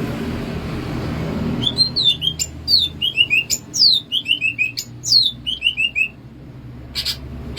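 A cucak ijo (green leafbird) singing: after a low rumbling noise, a rapid run of loud whistled phrases starts about a second and a half in, with steep falling sweeps and quick strings of short falling notes, stopping about six seconds in, followed by a few sharp chirps near the end.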